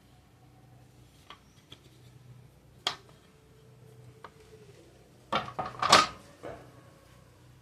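Metal parts and tools being handled on an opened sewing machine: scattered light clicks, one sharp click about three seconds in, then a brief burst of clattering knocks a little over five seconds in.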